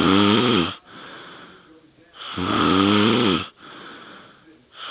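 A sleeping man snoring loudly: two loud, pitched snores about two and a half seconds apart, a third beginning near the end, with quieter, breathy breaths between them.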